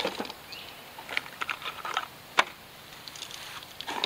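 Scattered light clicks and knocks of a G-Force Arms AR-12 semi-auto 12-gauge shotgun and its shells being handled on a folding table, the sharpest about two and a half seconds in.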